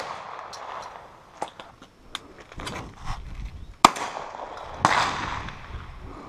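Two shots from a Browning Silver Hunter 12-gauge semi-automatic shotgun, about a second apart, the second trailing off in a long echo. Fainter knocks come before them.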